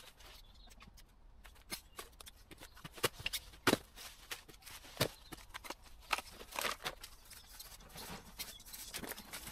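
Hand loppers cutting woody shrub stems: an irregular run of sharp snips and snaps, with twigs cracking and leaves rustling.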